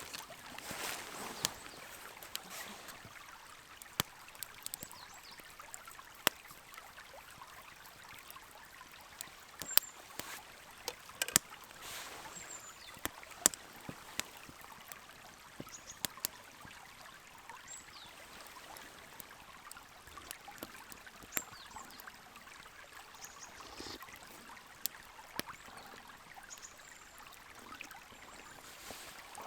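Small wood fire crackling: sharp, irregular pops and snaps over a soft hiss.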